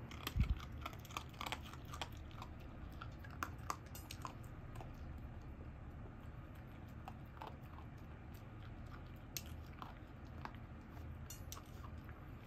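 Guillotine-style dog nail clipper snipping a puppy's claws: irregular small sharp clicks and crunches, with a dull bump about half a second in.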